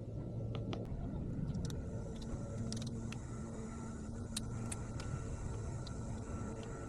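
A steady low mechanical hum, with scattered light clicks and taps from small parts being handled.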